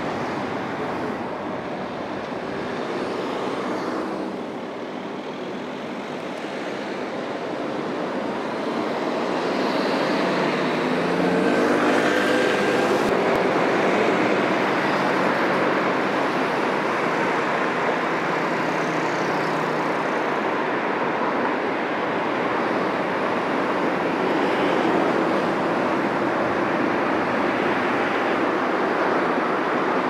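City traffic: steady tyre and road noise from cars driving along a busy street, with an engine rising in pitch as a car accelerates about a third of the way in.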